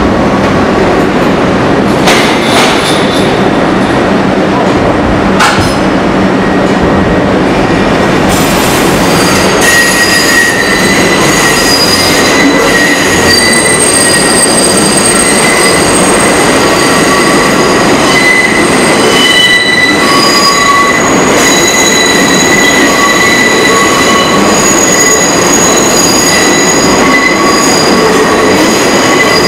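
New York City Subway R62A train pulling out and rolling past, with a steady loud rumble and a few sharp clicks. From about nine seconds in, its wheels squeal in several high, sustained tones as the cars grind round the curve.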